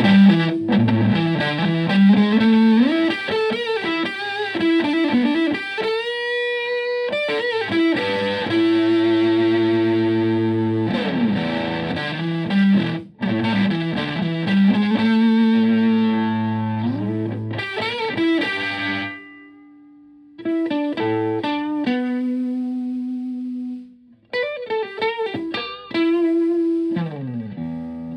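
Stratocaster played through a Tone Bender MK1.5 fuzz pedal with an OC75 germanium transistor into a Fender Twin Reverb–style amp: fuzzy riffs and long-sustaining held notes with string bends. A bit past halfway the sound drops back to a quieter, thinner single held note for a few seconds before the full fuzz riffing returns.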